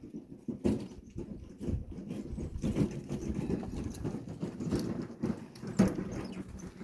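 Pine firewood logs knocking and clunking against each other as they are handled and stacked, an irregular run of wooden knocks with a few louder ones.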